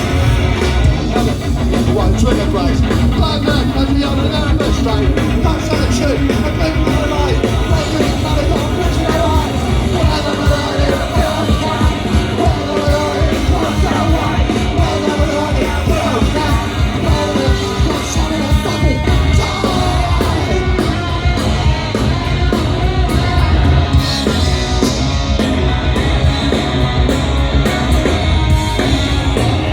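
Punk rock band playing live, loud and dense: electric guitar, bass and drums with shouted vocals.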